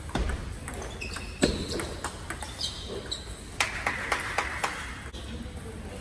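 Table tennis ball clicking off paddles and the table during a rally, a series of short sharp clicks at uneven spacing, with one loud hit about one and a half seconds in.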